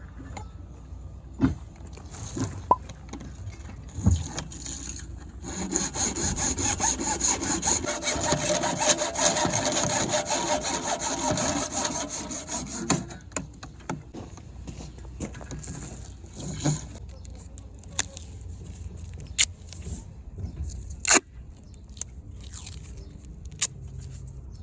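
A saw cutting through a downspout pipe, a steady run of sawing strokes lasting about seven seconds, with scattered clicks and knocks before and after.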